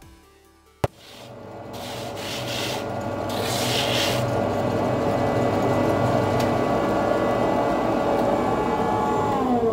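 Homemade grit-coated wooden buffing wheel running with a dried sheepskin pressed against it, the grit rasping the hard, crusty layer off the back of the skin to return it to soft suede. A sharp click comes about a second in; the rasp and the steady hum then build over a few seconds and hold. Near the end the hum falls in pitch as the wheel slows.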